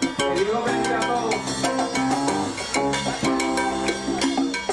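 Live salsa band playing, with drums and percussion keeping a steady beat and a lead singer singing into a microphone.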